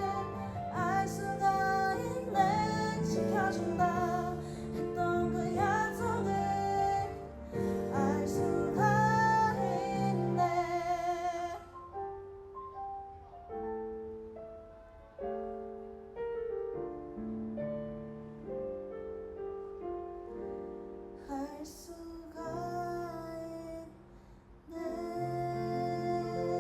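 Indie ballad: a female voice sings with vibrato over keyboard and bass for about the first ten seconds, then the keyboard plays on alone in slow, held notes as the song winds down.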